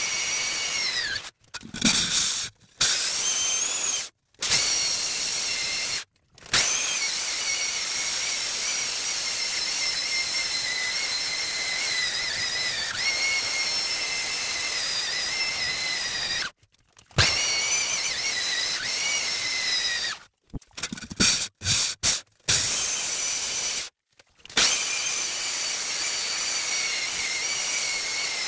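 Handheld diamond core drill boring into a stone wall: a steady high motor whine over the grinding of the bit in the rock, its pitch sagging briefly under load. The sound cuts off abruptly several times and comes back each time.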